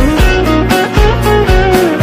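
Song music with a steady drum beat of about two beats a second under a lead melody that slides between notes.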